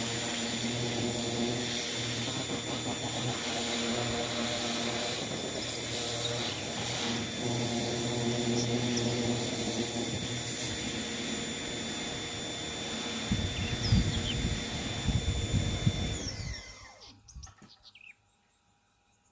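Electric high-pressure cleaner running with a steady motor hum and the hiss of its water jet. Toward the end the sound turns louder and rougher, then the motor is switched off and winds down to a stop.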